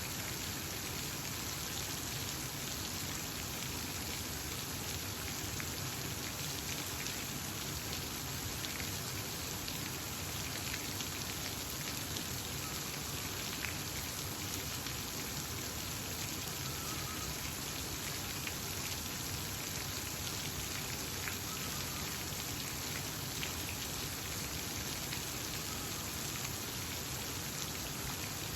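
Steady, even rush of water, with a few faint short bird chirps in the middle.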